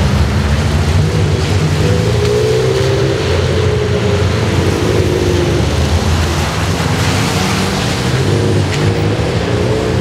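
Sports car engines running at low revs in slow traffic, a deep steady rumble with gentle small rises and falls in revs, over a steady hiss from the wet road.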